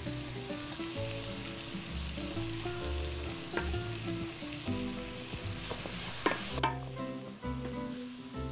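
Chopped onions frying in butter in a stainless steel sauté pan, sizzling steadily while they are stirred with a wooden spoon, with a couple of light knocks. The sizzle drops away abruptly about two-thirds of the way through.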